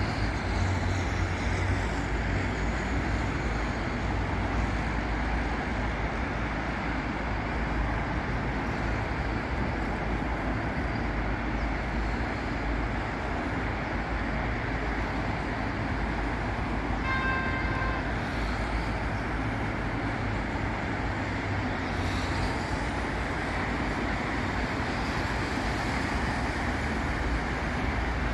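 Steady road traffic on a busy city avenue: cars and buses passing in a continuous rumble. A vehicle horn sounds briefly about 17 seconds in.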